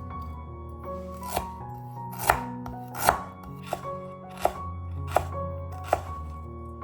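Knife chopping on a cutting board, about seven sharp strokes each less than a second apart, over background music.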